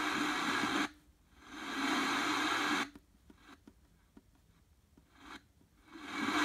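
The alarm clock's small FM radio speaker plays a steady hiss of static with no clear station, which means very poor reception. The hiss cuts off abruptly about a second in, swells back, then drops away to near-quiet with small clicks, returning in short swells as the presets are stepped through.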